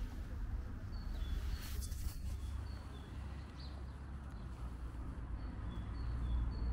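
A small bird repeating a high two-note chirp about three times a second, in two runs, over a steady low rumble. A brief rustle about two seconds in.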